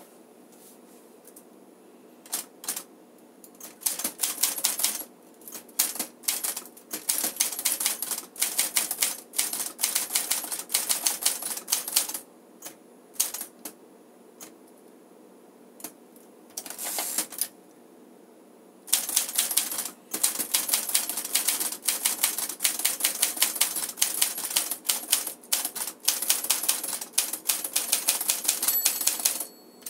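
1956 Smith-Corona Silent Super manual typewriter being typed on: rapid runs of key and typebar strikes, broken by a few short pauses, with a brief ringing tone near the end. The owner finds its typing exceptionally quiet.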